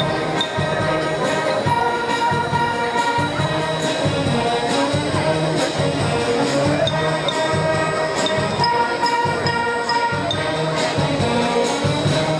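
Band music with brass instruments playing sustained notes over a steady percussion beat.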